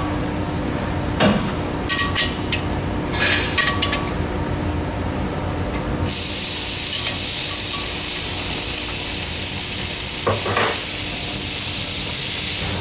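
Light ringing metal taps and clinks on a steel part clamped to a lathe faceplate while it is being dialled in: several in the first few seconds and one more near the end, over a steady hum. A loud, even hiss sets in about six seconds in and cuts off suddenly at the end.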